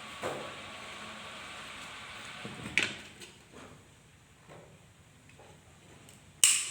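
Sharp clicks and light knocks of parts being handled during a car window regulator repair, with one sharp click about three seconds in and the loudest near the end. A steady hiss underneath stops after about three seconds.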